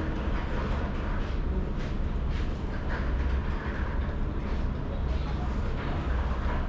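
Steady low rumble and hum of a busy restaurant, with faint background voices and a few brief clinks.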